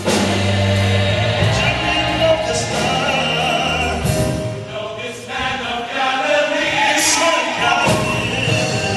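A large gospel choir singing with accompaniment, with a low held note underneath for about the first four seconds.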